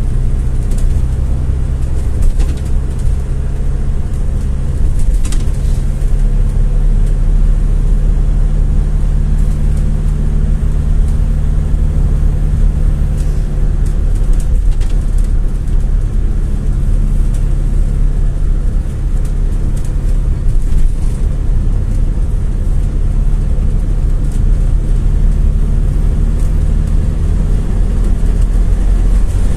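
GAZ-A68R52 City (GAZelle City) minibus running on the road, heard from inside the cabin: a steady low engine hum over road noise.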